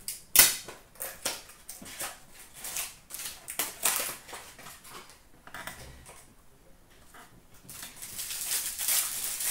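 Foil wrapper of an Upper Deck SP Game Used hockey card pack being torn open and crinkled, with a sharp rip about half a second in as the loudest sound. It is followed by a run of crackles, then the rustle of the cards being handled near the end.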